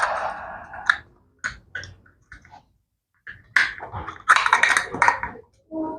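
Scattered clicks and knocks of parts and tools being handled, with a longer rustling scrape about four seconds in.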